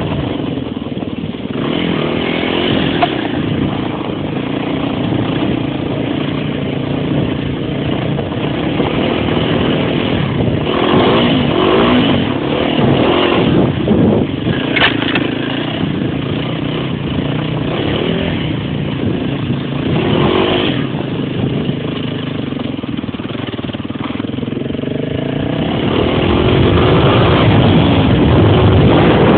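Small off-road vehicle's engine running under way, its pitch rising and falling with the throttle, getting louder and higher near the end as it speeds up.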